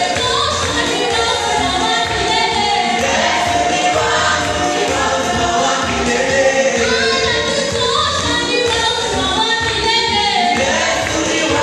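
A choir singing a gospel worship song over a steady beat.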